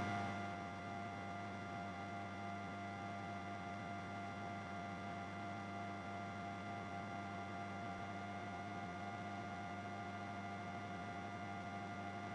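Steady electrical hum: several constant tones over a faint hiss, unchanging throughout.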